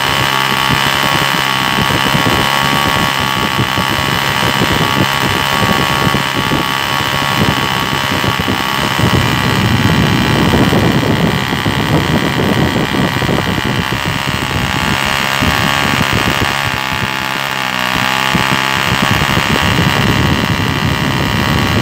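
Homemade single-cylinder nitro model engine running continuously with a rapid, even firing note, swelling slightly in strength about ten seconds in.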